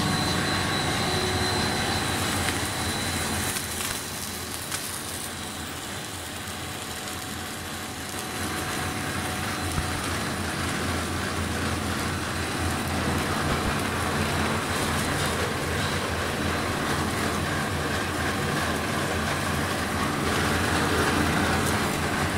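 Snack food extruder production line running: a steady mechanical drone with a low hum and a faint thin high whine. It drops a little in level between about four and eight seconds in, then comes back up.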